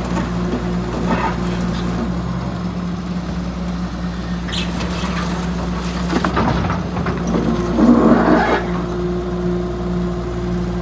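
Heavy machinery engine, most likely an excavator's, running steadily. A few knocks come about six seconds in, followed by a louder rush of noise for about a second near eight seconds.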